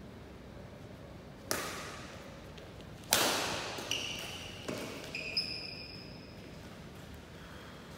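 Badminton rackets striking the shuttlecock in a rally, about five hits in four seconds, the second the loudest, each echoing in a large hall. Short high squeaks of court shoes on the mat come with the later hits.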